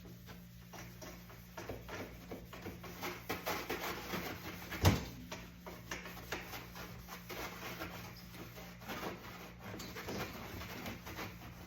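Hand-scrubbing the inside of a dishwasher tub with soapy water: quick, irregular rubbing and scraping strokes, with one sharper knock about five seconds in.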